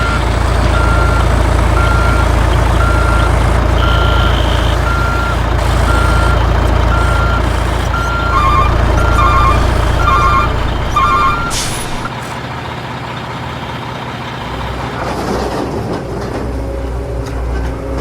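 Truck reversing alarm beeping about once a second over a steady low engine rumble. A second, quicker beep pattern joins near the middle, and both the beeps and the rumble stop about two-thirds of the way through, leaving a quieter, uneven mechanical sound.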